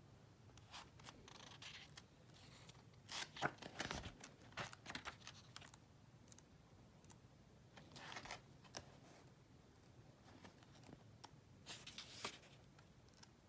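Paper pages of a paperback book being turned and flipped by hand: faint soft rustles and swishes, bunched about three to five seconds in and again around eight and twelve seconds.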